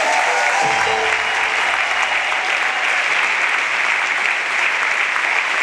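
Audience applauding steadily. The last notes of the backing music die away about a second in.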